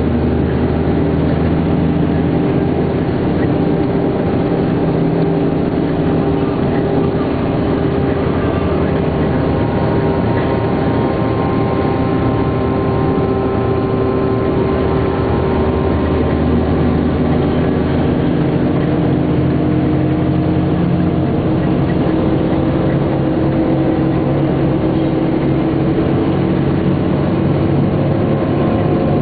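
Scania K420 coach's diesel engine running steadily under way, its pitch drifting slightly, with a change in engine note about 21 seconds in.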